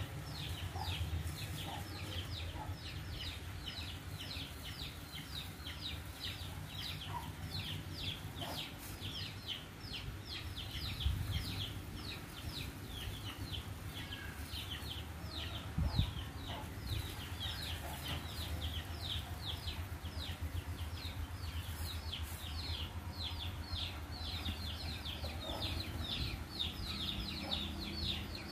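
A bird's high, thin cheeping: a short falling note repeated about three times a second without a break. Under it there is a low steady hum, and two soft knocks come about eleven and sixteen seconds in.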